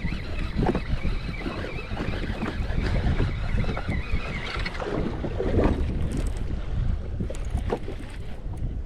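Wind buffeting the microphone over water lapping and slapping against a jet ski on the open sea, with a thin, steady high whine during the first half.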